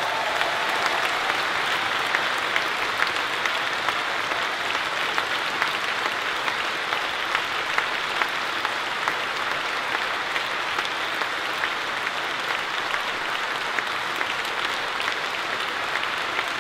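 Concert hall audience applauding at a steady level, a dense patter of many hands clapping.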